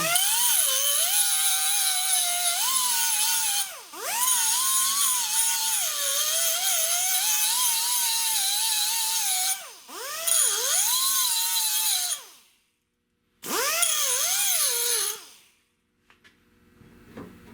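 A grinder trimming a sheet-metal patch piece down to a marked line, in four runs. Its high-pitched whine dips and recovers in pitch again and again as it is pressed into the metal, and it spins down near the end.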